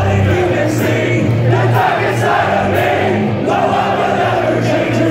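A large concert crowd singing along with a live rock band, many voices blending over the band's held bass notes.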